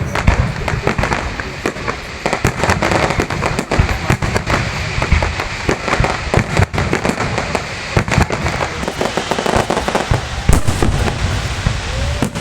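Fireworks display: a dense, continuous string of bangs and crackles from shells bursting in quick succession.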